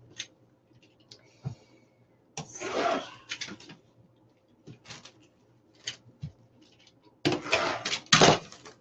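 Handling noise from wreath-making: rustling of ribbon and mesh with small clicks and knocks, with two longer rustles, the louder one near the end.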